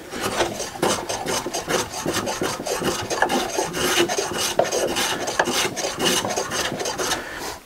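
Small block plane taking thin shavings off the end grain of a thick hardwood board, in a rapid run of short scraping strokes. The plane iron is set for a very light cut, as end grain needs.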